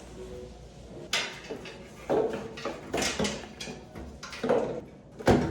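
A series of irregular knocks and clunks, about half a dozen spread over a few seconds: handling noise from working on a clothes dryer just after it is plugged back in.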